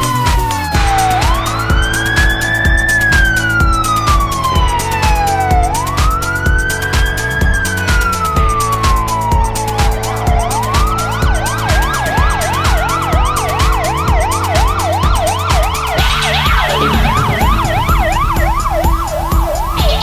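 Electronic fire-engine siren: a slow wail that rises quickly and falls slowly, repeating every four to five seconds, then switching about halfway through to a fast yelp of two or three sweeps a second. Background music with a steady beat runs underneath.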